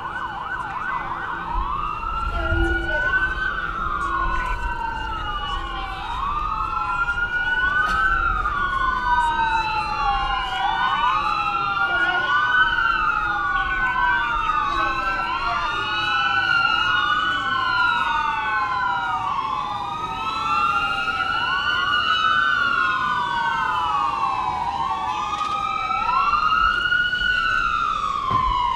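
Emergency vehicle sirens wailing, two or more at once, their rising and falling tones overlapping out of step.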